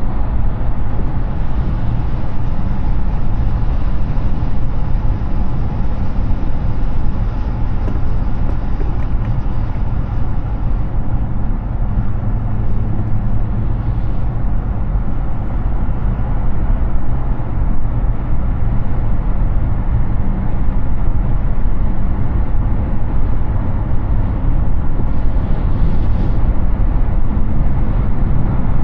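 Steady road and wind noise of a Hyundai Ioniq 6 electric car cruising at highway speed: a continuous low rumble of tyres on pavement with wind rush and no engine sound.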